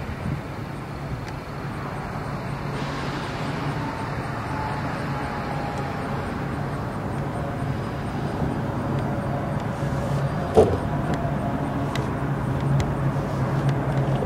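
Steady low engine rumble, slowly growing louder, with a single sharp click about ten and a half seconds in.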